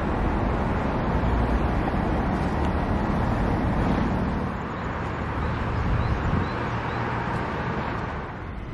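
Steady city traffic noise, heavy in the low range, which drops in level near the end.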